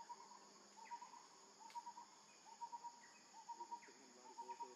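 Faint forest ambience: a steady high insect drone, with a short call of about three quick notes repeating roughly once a second.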